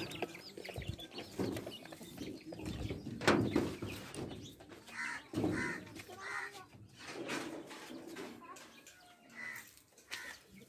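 Country chickens clucking at intervals, with a sharp knock about three seconds in.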